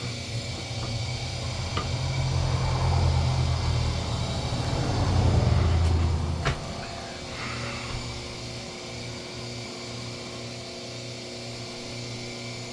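Low, steady mechanical hum that swells over the first few seconds, then drops sharply with a click about six and a half seconds in, leaving a quieter hum running on.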